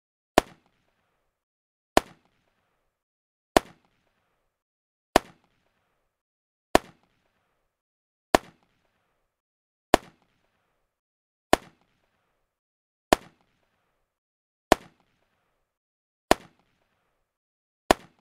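Gunshot sound effect: twelve single sharp shots, each with a short fading tail, repeated at an even pace of about one every one and a half seconds with dead silence between.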